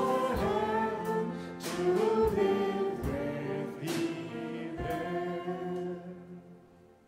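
Voices singing the closing line of a Christmas carol, the music fading out over the last two seconds.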